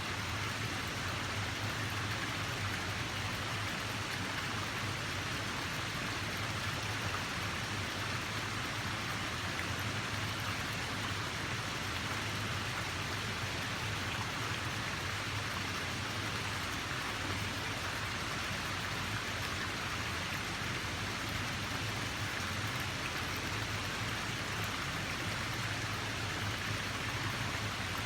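Running water rushing steadily, an even hiss that never breaks or swells.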